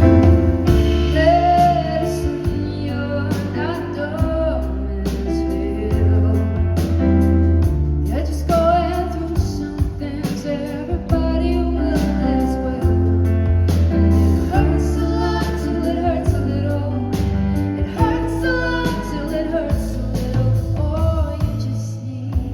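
Live song performance: a woman sings a slow melody over sustained chords and bass.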